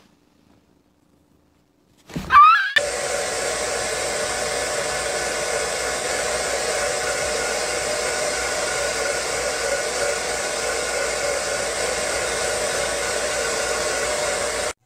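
Hair dryer blowing steadily on a wet bird, starting about two and a half seconds in and cutting off suddenly near the end. Just before it starts there is a short, loud, wavering squawk.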